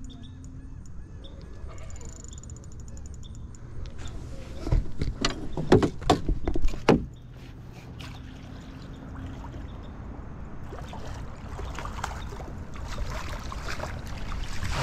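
Spinning reel being cranked, then a run of loud knocks and clatter about five to seven seconds in. Near the end, water splashes as a hooked pompano is brought to the landing net.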